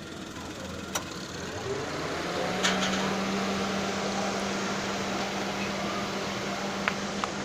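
Maruti Celerio's three-cylinder petrol engine idling with the air conditioning on. About two seconds in, a steady hum rises in pitch and settles as the AC compressor cuts in, and the whole sound grows a little louder. A couple of sharp clicks come early on.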